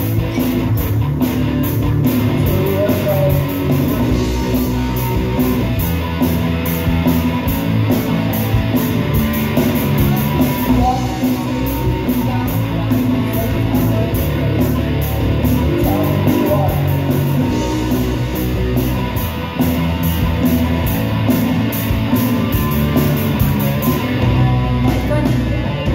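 Rock band playing live: electric guitar and bass guitar over a drum kit, with a steady, fast beat on the cymbals.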